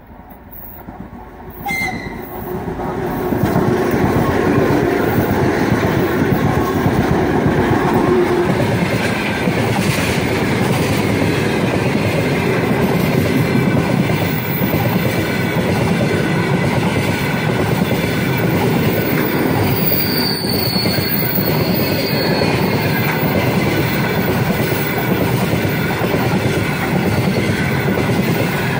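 Two 2TE10MK diesel locomotives in double traction approach, growing louder over the first three or four seconds as they near and pass. After them the wagons of a track-laying train roll by steadily, with the continuous rumble and clatter of wheels on the rails.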